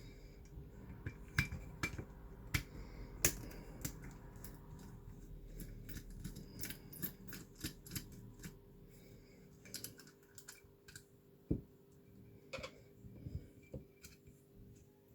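Irregular small clicks and taps of hand tools and small plastic and metal parts being handled while a corroded reversing camera is worked on. The taps come thickest in the first half and thin out toward the end.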